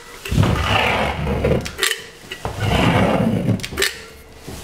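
Caulk gun pushing out the last of a tube of adhesive in wavy beads on a wall. There are three sharp clicks about two seconds apart, and between them long squelching spells as the adhesive is forced out.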